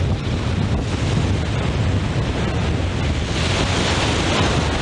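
Wind buffeting the microphone over surf breaking on a sandy beach, a steady rumble and hiss that grows stronger about three and a half seconds in.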